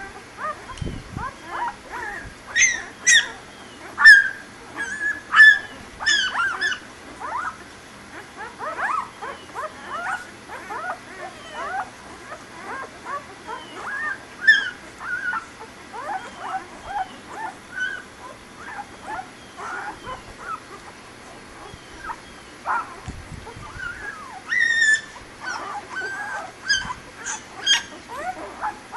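Newborn puppies squeaking and whimpering while they nurse: many short, high, falling cries, often overlapping. The cries come in louder clusters a few seconds in and again near the end.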